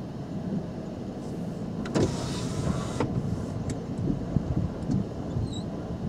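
Low, steady rumble inside a car, with a brief whirring rush about two seconds in that lasts about a second and ends abruptly, plus a few light knocks.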